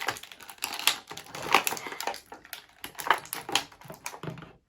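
Hard plastic toy packaging crackling and clicking irregularly as it is pried and twisted by hand.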